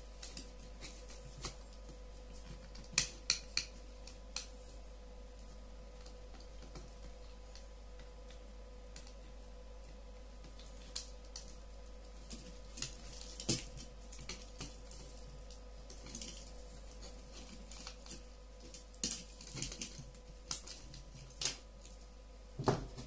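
Scattered small clicks and taps of a screwdriver and hard plastic parts as a Bluetooth headphone ear cup is taken apart, coming in short clusters, over a faint steady hum.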